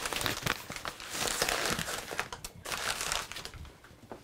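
Rustling and crinkling as a cloth shopping bag and paper-wrapped packages of ground meat are handled and unpacked, in irregular bursts that die down about three and a half seconds in.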